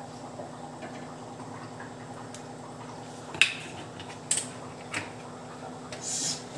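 Rice bran oil pouring from a plastic bottle into a nonstick frying pan. About halfway through come three sharp knocks, roughly a second apart, and a short hiss near the end, all over a steady low hum.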